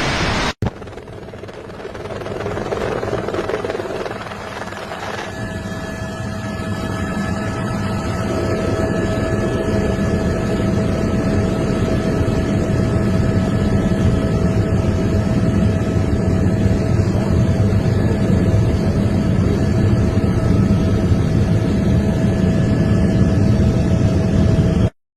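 A steady machine drone that grows gradually louder, with a steady high whine running over it from about five seconds in.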